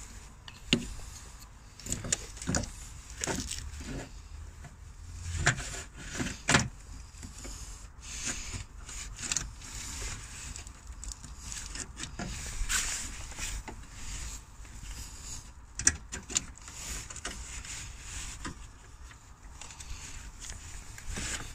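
Irregular clicks, knocks and rustling of hands working in an engine bay, seating an electric auxiliary water pump in its holder among coolant hoses and wiring.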